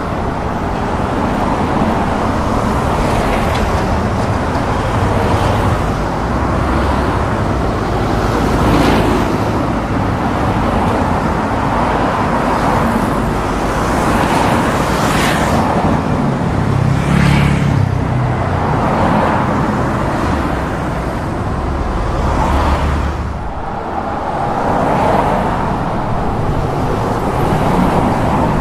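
Road traffic noise: a steady, loud rumble of motor vehicles, with several cars passing one after another.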